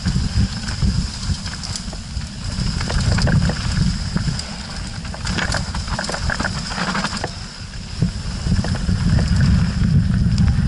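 Canyon Strive mountain bike riding fast down a loose, stony dirt trail, heard through an action camera mounted on the rider: a constant low rumble of trail vibration and wind on the microphone. Over it come rattling and clatter from the tyres on loose stones and the shaking bike, thickest around the middle.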